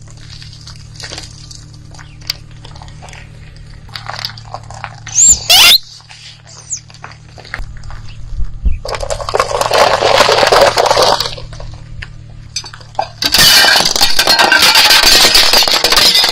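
A car tyre rolls over a row of brittle coloured bowls and shatters them: two long stretches of dense crackling and clinking as they break into shards. The first starts about nine seconds in; the second, from about thirteen seconds in, is the loudest. About five seconds in there is a short, loud, high squeal that rises in pitch.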